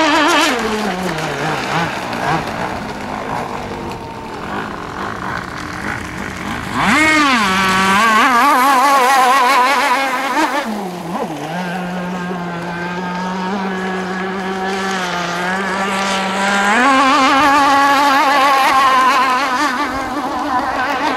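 Modified 29.5 cc Zenoah two-stroke engine of a radio-controlled gas speedboat running at speed. Its pitch falls early on, jumps sharply about seven seconds in and wobbles quickly at the top, dips and holds lower for a few seconds, then rises again near the end.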